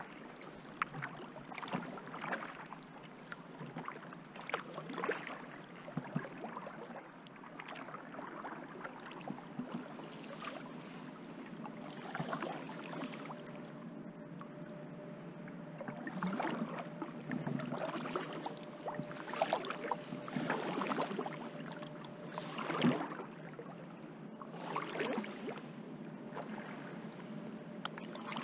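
Kayak paddle strokes: the blades dipping and splashing in river water over and over at an uneven pace, with water dripping off them.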